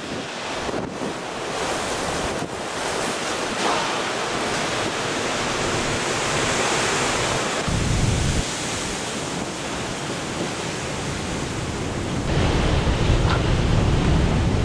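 Heavy storm surf rushing and breaking under strong wind, with wind buffeting the microphone. Deep rumbles come about eight seconds in and again from about twelve seconds on.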